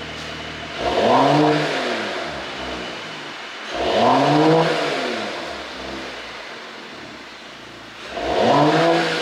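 2020 Mercedes CLS450 4Matic's turbocharged inline-six, idling and then blipped three times. Each rev rises and falls back to idle, with crackling on the overrun from a pop-and-bang ECU tune.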